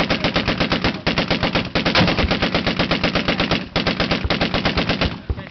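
Belt-fed machine gun firing on full automatic, a fast even stream of about a dozen shots a second. The fire breaks off briefly twice and stops shortly before the end.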